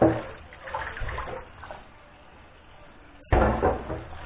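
Tap water splashing into a stainless steel kitchen sink as hands rinse a heap of small fish. The splashing gets suddenly louder about three seconds in.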